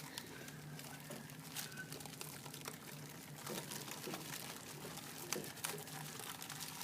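Ground beef being worked into a frying pan: faint crackling and scattered soft clicks over a steady low hum, busier near the end.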